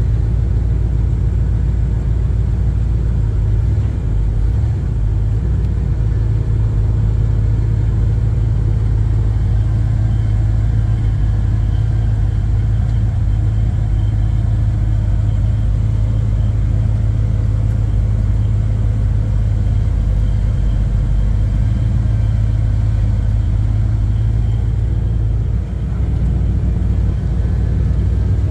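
Pickup truck engine and road noise heard steadily from inside the cab while driving: a constant low rumble.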